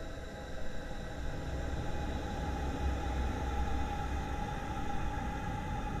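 A steady low rumble with a faint held tone above it, swelling slightly after the first second or so.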